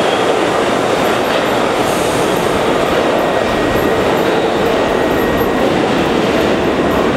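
R62A subway train running out of the station into the tunnel, a steady loud rumble of steel wheels on rail echoing off the station walls, with a faint high wheel squeal in the middle.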